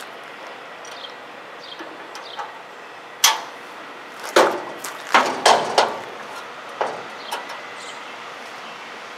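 Hinged expanded-metal mesh door on a steel trailer compartment being lowered shut and latched: a sharp metal clank about a third of the way in, then a cluster of clanks and rattles in the middle, and a lighter click later on.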